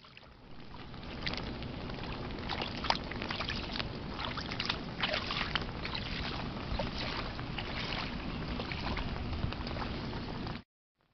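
Rubber wellington boots sloshing and splashing through shallow rainwater puddles in light rain, with many sharp drip-like ticks over a low rumble. The sound fades in over the first second and cuts off suddenly near the end.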